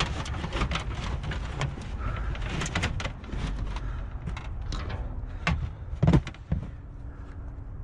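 Irregular knocks and clatters, with a louder thump about six seconds in, over a low steady rumble.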